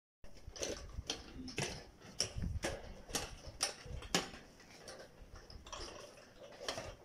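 A string of sharp clicks and knocks, about two a second for the first four seconds, then sparser.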